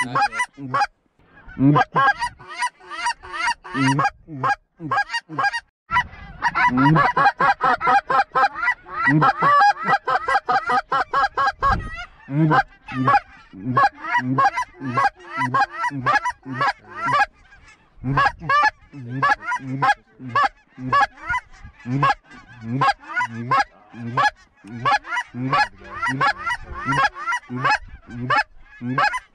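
Goose honks and clucks in quick succession, about three or four a second, thickening into a dense overlapping chorus for several seconds in the middle.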